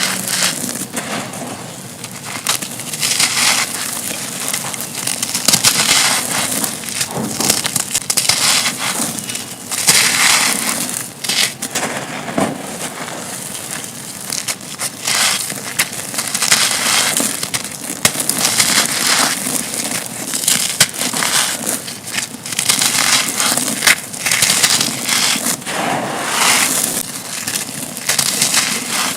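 Dry concrete and stony chunks being crushed and crumbled, a continuous soft crunching with irregular louder bursts and crackling.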